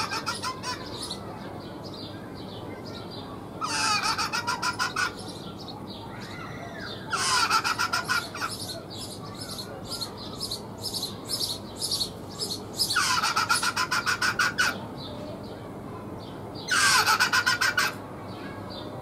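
Rock hyrax calling: four loud bouts of rapid, harsh pulsed cries, a few seconds apart, each opening with a falling note, with shorter scattered pulses between the second and third bouts.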